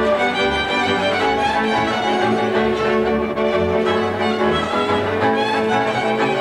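Hungarian folk string band playing dance music live: a fiddle leads the melody over bowed accompaniment, with a double bass pulsing an even beat underneath.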